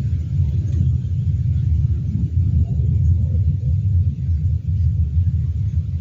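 Wind buffeting the microphone: a loud, uneven low rumble that rises and falls with the gusts.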